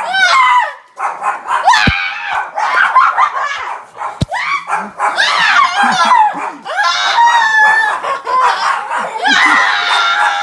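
A puppy screaming and yelping in a run of high-pitched cries that rise and fall, with two sharp knocks in the first half.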